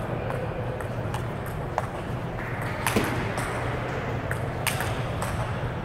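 Table tennis rally: the ball clicking sharply off the rackets and the table, about two hits a second, over a steady low hum.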